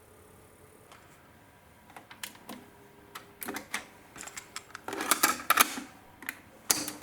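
Hitachi D-W700 cassette deck being handled: a series of sharp mechanical clicks and clunks, such as a cassette going in and transport keys being pressed. The clicks start about two seconds in and grow louder and more frequent toward the end.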